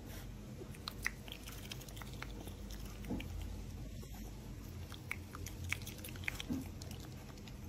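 Otter chewing and biting food, a scatter of small sharp clicks and crunches.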